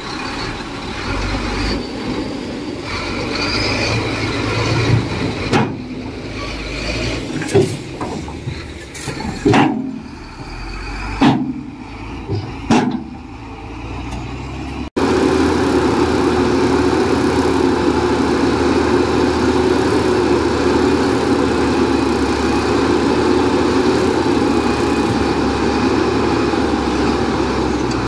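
Heavy diesel earthmoving machinery running, with several sharp clanks in the first half. After an abrupt cut about halfway, a louder, steady diesel engine drone with a constant hum takes over.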